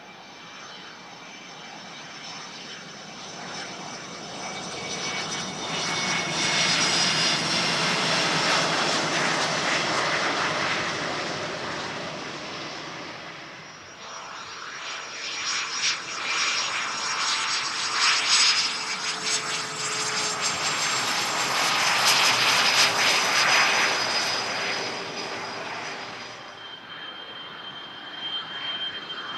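Twin General Electric F404 jet engines of a McDonnell Douglas F/A-18B Hornet running as it rolls along the runway: jet noise with a high turbine whine that swells loud, dips about halfway through, then swells again before fading near the end.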